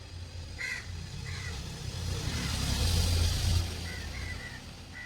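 A motor vehicle passing by: a low engine rumble and tyre hiss that swell to a peak about three seconds in, then fade away.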